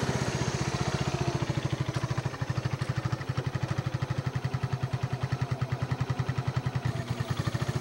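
Small ATV engine running at low speed with a rapid, even chugging beat.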